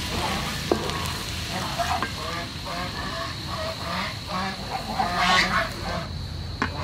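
Chopped garlic sizzling in hot oil in a wok, with a sharp tap of the wooden spatula on the pan early on. Over it, birds call repeatedly in short pitched notes.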